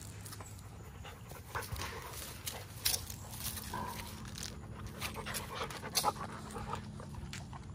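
Pit bulls panting and breathing hard as a large dog and a puppy play-wrestle, with several short sharp scuffling sounds among the panting.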